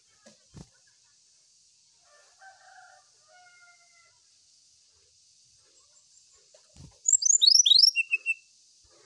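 Brown-chested jungle flycatcher singing a short, loud burst of quick downward-sweeping whistles about seven seconds in, ending with a few short lower notes. A couple of soft thumps come before it.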